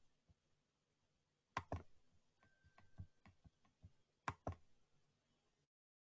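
Faint clicks at a computer's keyboard and mouse: a quick pair of sharper clicks about a second and a half in, lighter ticks after it, and another quick pair near the end.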